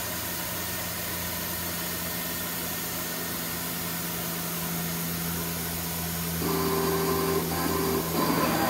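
MultiCam MG-205 CNC router homing its axes: a steady low machine hum as the carriage travels along the gantry. About six and a half seconds in, a steady whine from the axis drives joins, breaks off briefly, and comes back louder near the end.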